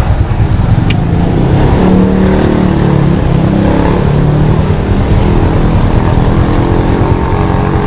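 Gas wok burner under a large mamak-stall wok, running with a loud, steady roar while an egg fries in the oil. A low wavering drone joins it for a few seconds in the middle.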